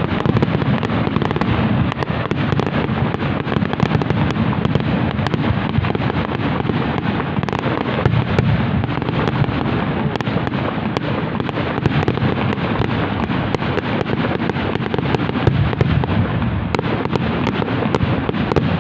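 Aerial fireworks going off in a dense, continuous barrage: many sharp bangs and crackles overlapping one another without a break.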